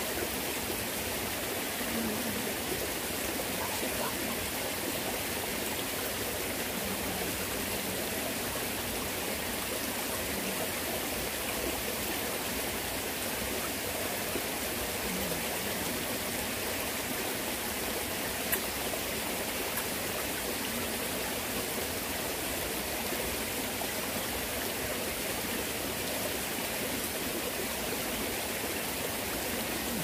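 Mountain stream running steadily over rocks, an even rush of water, with one brief click about two-thirds of the way through.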